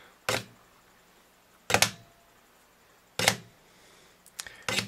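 Sharp knocks, about one every second and a half with a quicker pair near the end, as a permanent magnet is swung in and out of the jaws of a Fluke clamp meter and taps against them.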